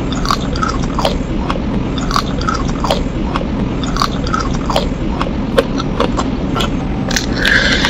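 Close-miked eating of chicken feet: biting and chewing with many sharp, irregular mouth clicks and smacks as the skin is gnawed from the bones, and a louder, longer mouth noise near the end.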